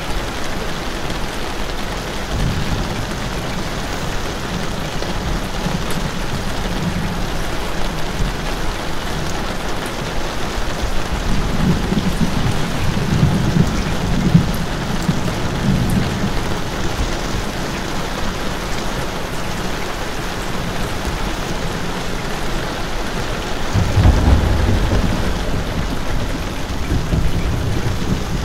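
Steady rain falling, with low rolling thunder rumbling twice, once around the middle and again near the end.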